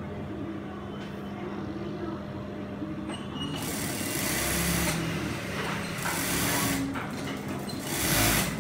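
Brother industrial single-needle sewing machine over a steady motor hum, then stitching in three short runs: about three and a half seconds in, about six seconds in, and a last, loudest run near the end.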